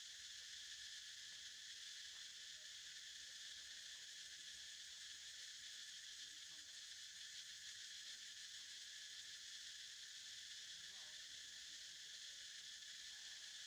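Faint, steady insect chorus: a continuous high-pitched drone that never pauses.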